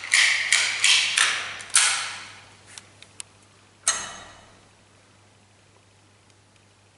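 Steel weight-stack plates of a multi-station cable gym machine clanking as the stack is worked and the cable bar pulled down and let back: about five quick metallic clanks with ringing in the first two seconds, and one more about four seconds in.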